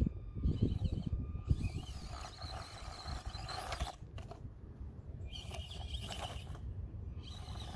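Axial SCX24 Deadbolt micro crawler's small electric motor and gearbox whining in short stretches as it crawls, stopping and starting again several times, over a low rumble that fades in the first couple of seconds.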